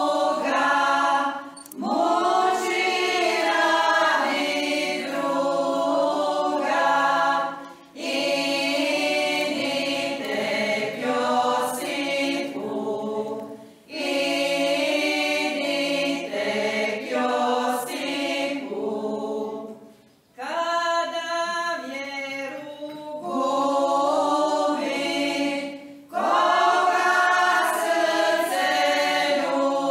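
Women's folk choir singing a Croatian church folk hymn unaccompanied, in phrases of about six seconds with short breath pauses between them.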